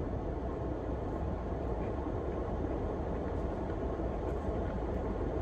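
Steady low rumble and hiss of a running vehicle engine or ventilation fan, unchanging throughout.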